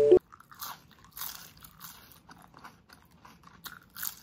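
Crisp fried lumpia (spring roll) being bitten and chewed close to the microphone: a run of irregular crackly crunches. A mallet-percussion music jingle cuts off just after the start.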